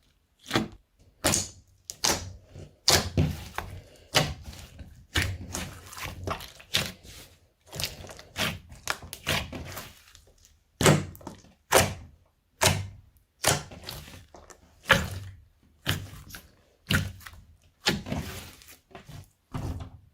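Slime being kneaded and pressed by hand, giving a steady run of sharp, wet slaps and pops, roughly one or two a second.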